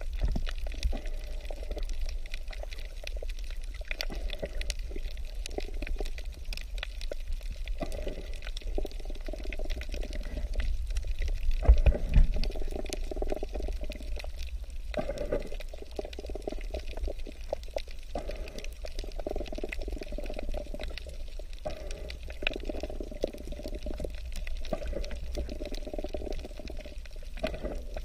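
Water sound recorded underwater by a camera on a coral reef: a low rumble and muffled sloshing that swell and fade every few seconds, with scattered faint clicks, loudest about twelve seconds in.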